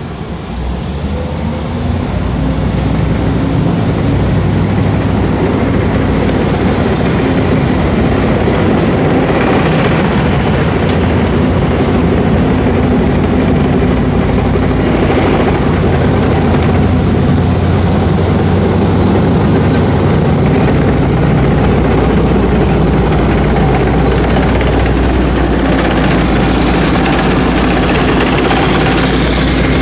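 JGSDF Type 10 main battle tank driving slowly past on a concrete road: its V8 diesel engine running loud and steady, with a high whine that glides up and down in pitch. The sound grows louder over the first few seconds as the tank approaches, then holds.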